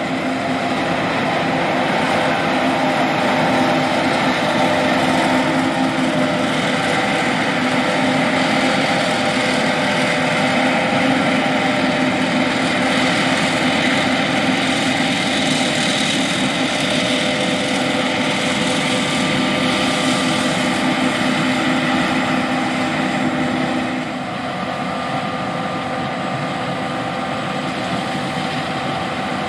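John Deere S780 combine harvester running steadily while harvesting soybeans: a dense machine drone with several steady hums. A few seconds before the end it becomes slightly quieter and its lowest hum stops.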